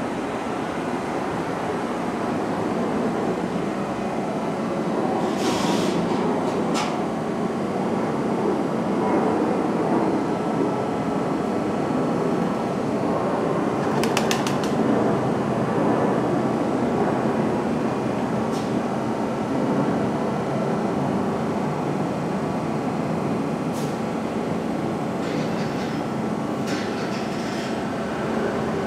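A New York City Subway 1 train running on the rails: a steady rumble of wheels on track, with brief sharp clicks now and then and a quick run of them about halfway through.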